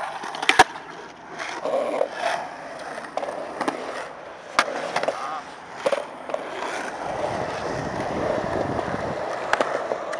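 Skateboard wheels rolling on concrete, broken by sharp clacks of the board popping, landing and striking obstacles, the loudest about half a second in as the board comes off a stone ledge. A heavier rolling rumble runs from about seven to nine seconds in.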